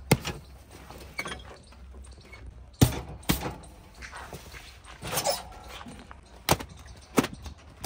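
About seven sharp knocks and clunks at irregular intervals, the loudest about three seconds in, over a steady low engine rumble.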